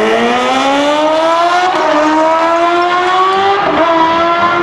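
Sport motorcycles accelerating hard down a drag strip at full throttle, engine pitch climbing steadily and dropping sharply at two upshifts, just under two seconds in and near the end.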